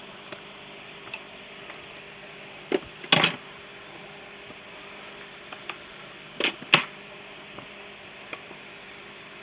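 Metal hand tools clinking and clattering as they are handled and set into a toolbox, in scattered knocks with two louder clusters, about three seconds in and near seven seconds.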